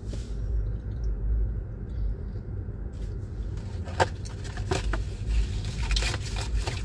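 Steady low road and engine rumble inside a moving car's cabin, with a couple of short clicks about four and five seconds in.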